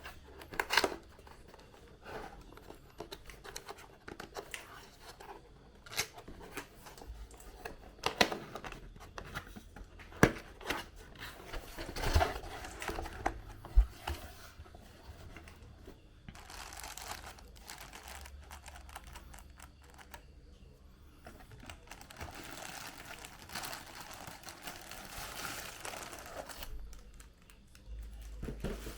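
Crinkling and rustling of handled material, with scattered sharp clicks and knocks through the first half and longer stretches of crinkling in the second half.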